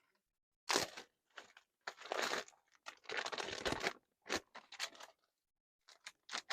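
Plastic food packaging crinkling and being torn open, in several short bursts with pauses between.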